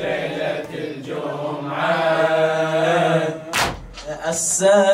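A male voice chanting a drawn-out melodic line in a Shia latmiyya lament, with one heavy thump about three and a half seconds in.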